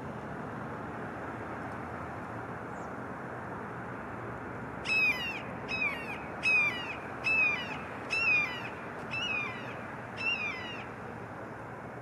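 Juvenile red-shouldered hawk calling: a series of seven squealing cries, each sliding down in pitch, about one a second, starting about five seconds in. A steady background noise runs underneath.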